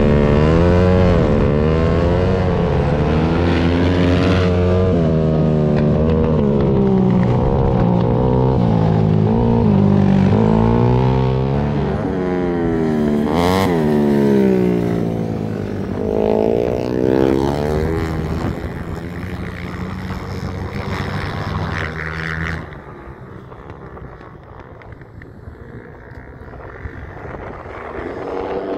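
Ice-racing motorcycle engine revving up and down hard as the bike laps the track, with a bike passing close about halfway through. About three-quarters of the way in the engine sound drops off sharply to a faint distant drone, then grows again near the end as a bike approaches.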